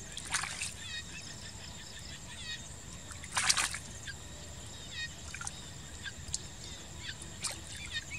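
Hands splashing and sloshing in shallow muddy water while groping for fish, with the loudest splash about three and a half seconds in and smaller splashes after it. Repeated short high chirps sound behind it.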